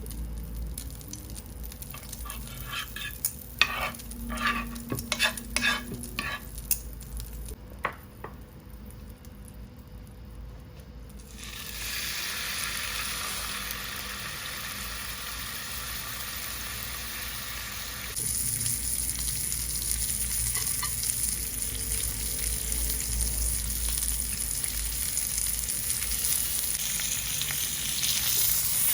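A run of clicks and knocks, then beef sizzling in hot butter in a pan. The sizzle starts suddenly about twelve seconds in and grows louder about six seconds later.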